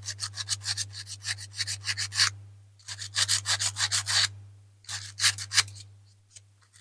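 180-grit sandpaper rubbed in quick back-and-forth strokes along a small steel toy-car axle, polishing off tarnish and rust. The strokes come in runs of a second or two with short pauses between, and grow fainter near the end.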